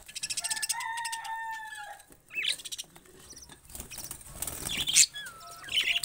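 Budgerigars chattering: a fast rattling chatter with a couple of drawn-out whistled calls in the first two seconds, then short chirps. A loud flutter of wings comes about five seconds in.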